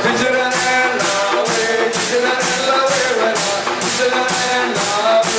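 Pastellessa music played by bottari on wooden barrels, vats and sickles: a steady beat of about two strokes a second with a melody line over it.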